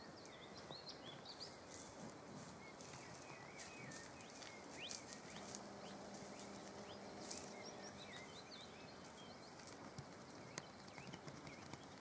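Quiet woodland ambience: small birds twittering, with scattered snaps and rustles from a cow walking through dry bracken and twigs. A low steady hum sounds for about three seconds midway.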